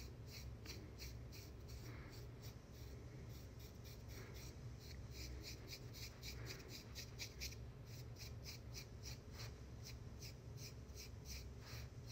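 Small facial razor's blade scraping fine hair off the skin of the jaw and chin in quick, short strokes, about four a second; faint.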